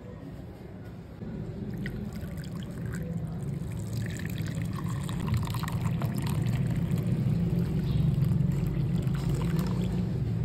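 Whey from curdled milk poured from a metal pot onto a muslin cloth over a bowl, a steady splashing pour. It starts about a second in and grows louder as more is tipped out.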